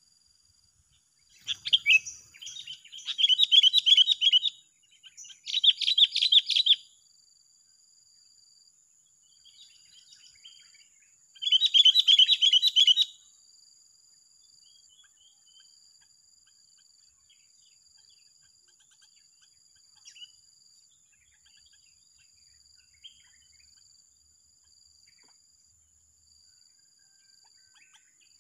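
Sooty-headed bulbuls (kutilang) chattering: loud bursts of rapid repeated notes about a second and a half in, around four and six seconds, and again near twelve seconds, then only faint scattered chirps. A steady high-pitched whine and a repeating high pulsed note run underneath.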